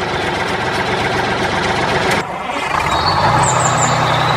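Truck engine running. About two seconds in the sound cuts to a steadier idle with a deep, even hum.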